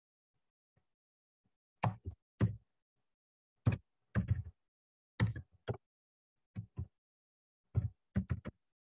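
Computer keyboard typing: about sixteen short, sharp keystrokes in uneven bursts, with brief pauses between words.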